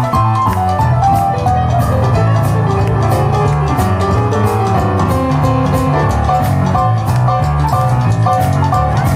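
Live jump-blues boogie from a small rhythm-and-blues band: piano played on a Yamaha stage keyboard over bass and drums, with a steady cymbal beat.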